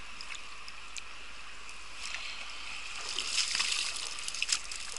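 Shallow stream running over stones, with water splashing and dripping off a nylon cast net as it is hauled out of the water, busiest from about three seconds in.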